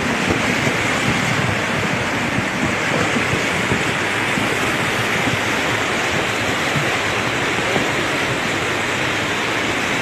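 Steady roar of a muddy flash flood rushing past, a mountain stream swollen into a torrent by days of continuous rain.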